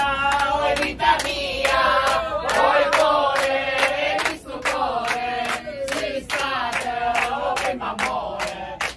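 A group of people singing together in chorus, clapping along in a steady rhythm.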